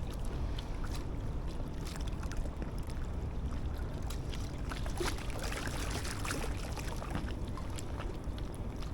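Steady low rumble of wind on the microphone and river water lapping and gurgling against rocks, with small scattered clicks throughout.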